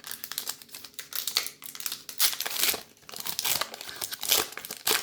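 Crinkling and tearing of a trading-card pack wrapper being opened by hand, with a dense crackle and a few louder rustles.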